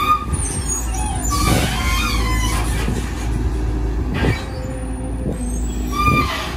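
Volvo EC210DL long-reach excavator working: the diesel engine runs steadily under load while the hydraulics swing the boom and lift the bucket. Short high-pitched squeals come at the start, after about a second and near the end.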